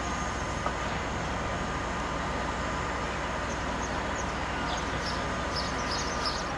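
Diesel shunting locomotive's engine running steadily, a constant low hum.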